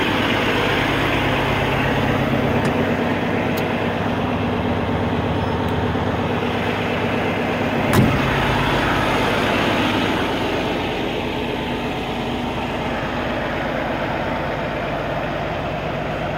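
Peterbilt 389 semi truck's diesel engine idling steadily. A single sharp knock about eight seconds in.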